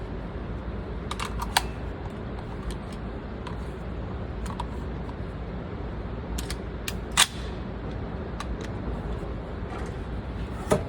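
Scattered sharp clicks and knocks from handling the rifle and scope, in an irregular pattern with a small cluster about seven seconds in that holds the loudest click. A steady low hum of background noise sits underneath.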